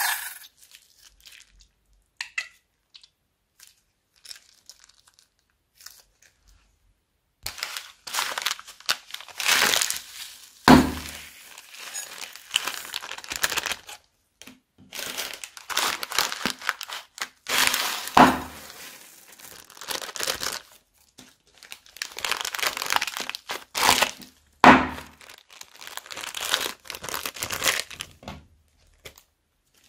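Clear plastic bags crinkling in bursts as they are handled over a bowl of slime, starting about seven seconds in, with a few dull knocks; before that only a few faint clicks.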